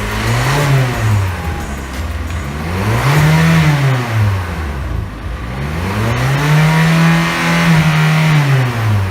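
The restored 2011 Hyundai Elantra GLS's engine being revved three times, each rev rising and then falling back; the last rev is held high for a couple of seconds before dropping.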